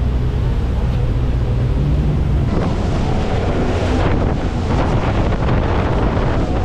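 Wind rushing over a GoPro microphone on a moving boat, with the boat's engine humming low underneath. About two and a half seconds in, the hum gives way to a louder rush of wind and water.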